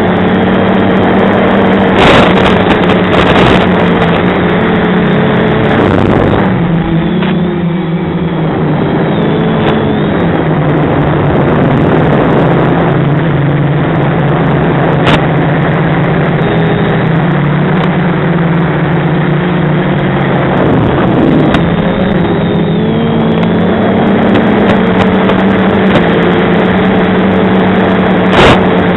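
FPV quadcopter's Sunnysky brushless motors and propellers whining steadily over a rushing noise, the pitch rising and falling as the throttle changes through the turns. There are a few sharp crackles, about two seconds in, halfway through and near the end.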